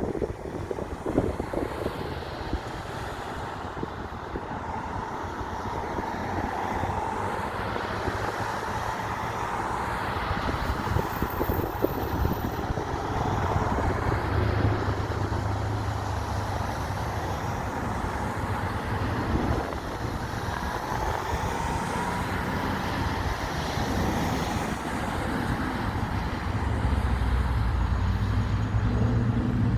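Steady engine rumble, swelling and easing over several seconds, with wind buffeting the microphone in the first couple of seconds.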